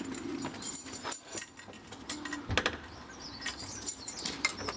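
Bunch of keys jangling in a hand, with scattered clicks and taps, as a key fob is held against a door entry panel.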